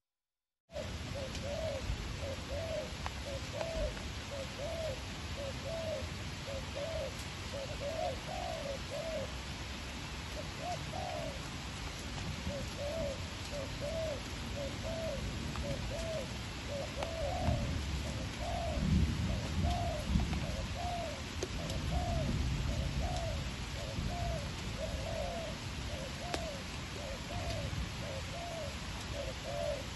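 Spotted dove cooing: a long, steady series of low coos, a little more than one a second with a few short pauses, starting about a second in. A steady hiss and a low rumble around the middle lie underneath.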